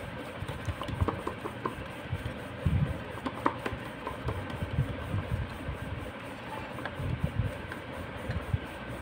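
Hands pressing and patting a stuffed wheat-dough kachori flat on a wooden board, giving irregular soft low thumps with a few light taps.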